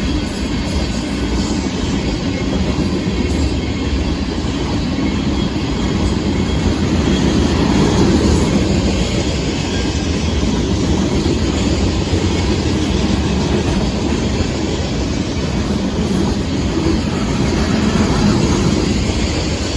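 Union Pacific freight train of hopper cars rolling past, a steady rumble of wheels on the rails that swells a little about eight seconds in and again near the end.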